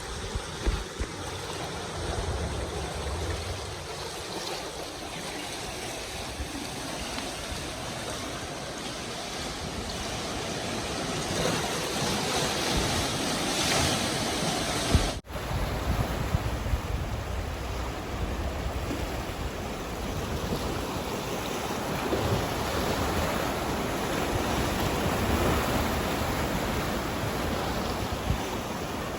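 Sea water washing and wind buffeting the microphone: a steady rush with low rumbles. The sound cuts out for an instant about halfway through and then carries on.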